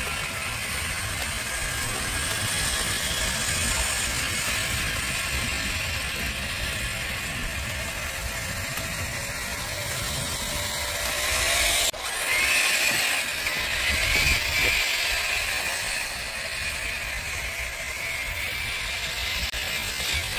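Traxxas TRX-4 RC truck's electric motor and gear drivetrain whirring and ratcheting as it is driven over rough ground. It breaks off sharply about halfway through, then runs louder with a stronger high whine.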